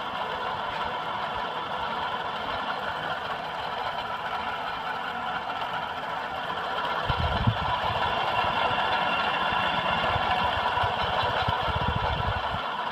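Toastmaster ceiling fan running on its top speed, a steady whir with a dense hum from its noisy bearings, which had seized and were freed with white lithium grease. A low rumble joins in about seven seconds in and drops away near the end.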